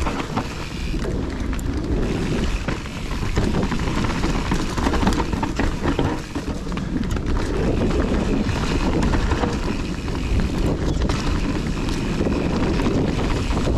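Wind buffeting the microphone of a chest-mounted action camera on a moving mountain bike, mixed with tyre noise on the trail and a steady clatter of small knocks and rattles from the Kona Process 153 bike over rough ground.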